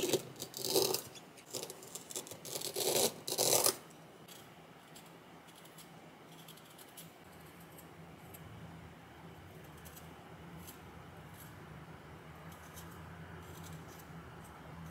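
Kitchen knife cutting through fresh ginger root onto a plastic cutting board: a handful of sharp cuts in the first four seconds. After that, faint light scraping as the knife peels the skin off the ginger.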